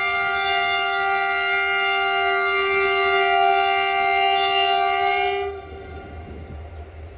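Air horn of an approaching CFR 'GM' diesel locomotive sounding one long, steady blast of several notes at once, cutting off about five and a half seconds in. A low rumble of the train continues underneath.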